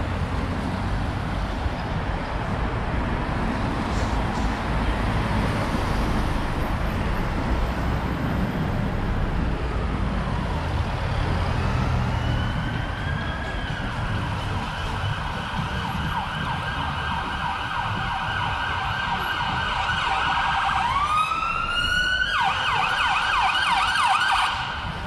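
A police car siren approaching over the rumble of city traffic: from about halfway a tone glides up and holds, then a few seconds before the end it switches to a fast, repeating yelp.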